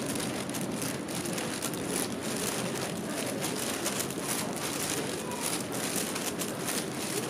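Street ambience in a narrow urban alley: a steady noisy hush with faint, indistinct distant voices and many small irregular clicks and crackles.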